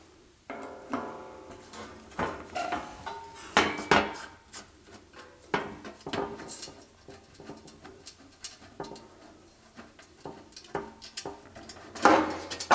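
Metal parts and hand tools clinking and clattering with irregular knocks, some leaving a short metallic ring, as a band saw's screws, tension adjuster and sheet-metal panel are taken off by hand.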